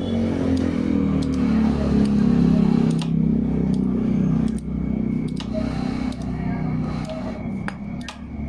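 Scattered light metal clicks as the oil strainer cap is screwed into the engine case by hand, over a steady low hum and murmur.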